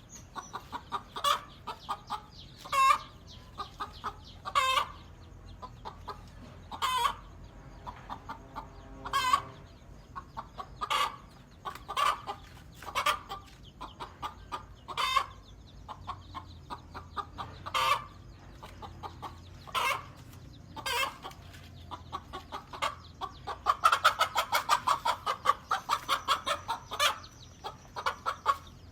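Hen clucking in short, loud calls about once a second, breaking into a fast run of clucks near the end.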